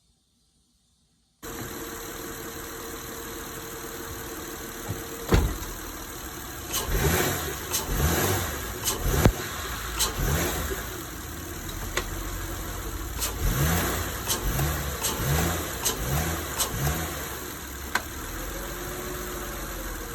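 Acura TL's V6 engine idling, then blipped in short revs in two runs, with sharp clunks among the revs. This is a motor-mount check on a car whose upper transmission mount is torn.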